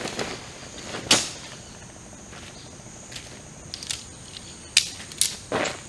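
Tent pole sections clicking and clacking as a dome tent's shock-corded poles are pulled out and folded: one sharp click about a second in and a few more near the end. Under them runs a steady high buzz of insects.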